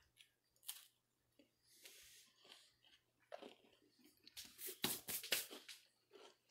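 Crunching and chewing of an MRE cracker spread with peanut butter, in scattered crisp bites, with the loudest run of crunches about four and a half to five and a half seconds in.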